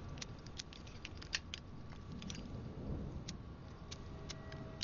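Cigarette lighter flicked again and again: irregular sharp clicks of the flint wheel, several a second, with a louder click about a second and a half in, over a low rumble.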